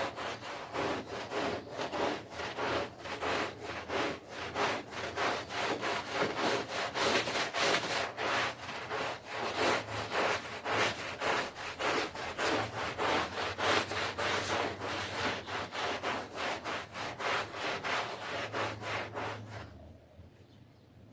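Stiff brush scrubbing a wet carpet in quick, even back-and-forth strokes, stopping about a second before the end.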